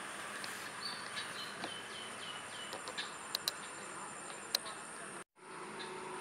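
Outdoor ambience of insects buzzing steadily, with a bird calling a quick run of short falling whistled notes. A few sharp clicks follow, and the sound drops out briefly about five seconds in.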